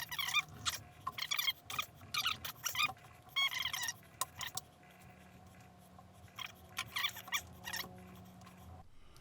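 Stiff, gritty tool pivots of an old Victorinox Camper Swiss Army knife squeaking and scraping in many short, high chirps as the tools are forced open: grime packed in the joints. The squeaks come thick for the first few seconds, then thin out.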